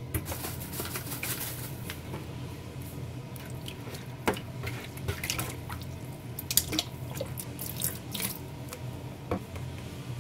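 Peeled raw prawns being rubbed and squeezed by hand in water in a metal tray in a stainless steel sink, washed with salt and potato starch: wet squishing, dripping and splashing, with a few sharper slaps and knocks, the loudest about four, six and a half and nine seconds in.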